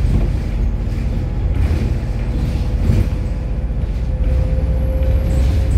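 Steady low road and engine rumble heard from inside a moving vehicle.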